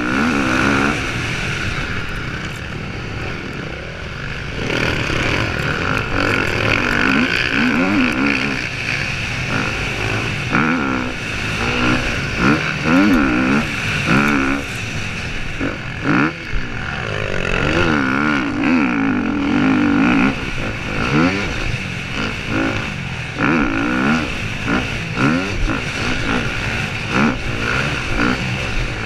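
Motocross bike's engine heard from a camera mounted on the bike, revving up and falling back again and again as the rider accelerates and shifts gears along the track. Scattered knocks from the bike hitting bumps.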